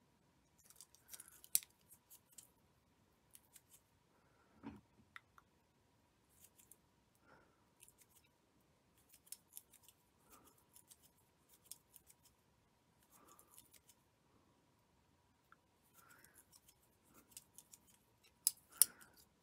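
Faint scattered clicks, ticks and soft rustles of fingers working tatting thread with a plastic tatting shuttle. The sharpest clicks come about a second and a half in and again near the end.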